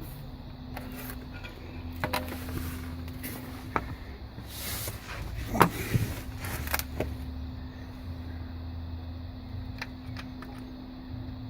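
Removed metal car parts being handled: a series of clinks and knocks in the middle, the loudest about halfway through, over a steady hum.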